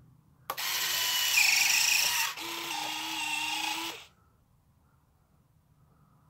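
Electric retractable landing gear of a foam RC B-24 Liberator model retracting: the retract motors whir for about three and a half seconds, with a click and a small drop in level partway through, then stop.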